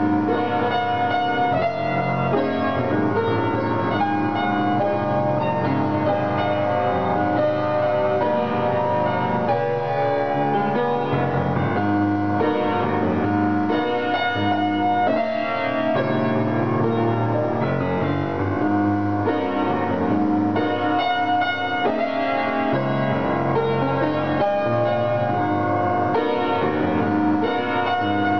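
Piano played solo: a continuous flow of chords and melody notes.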